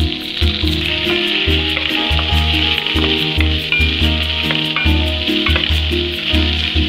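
Chopped onions sizzling in hot oil in a frying pan as they are stirred with a spatula. A background music track with a steady bass line plays underneath.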